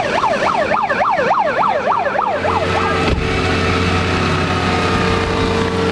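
Siren yelping fast, about three up-and-down sweeps a second, cutting off a little over two seconds in. Then an engine runs with a steady drone.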